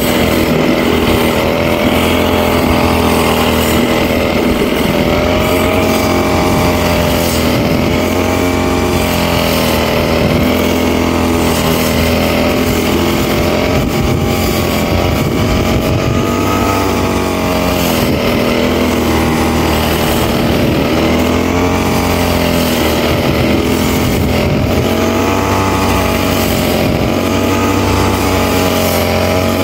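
Engine-driven brush cutter running hard, its engine pitch dipping and climbing again several times as the blade works through grass.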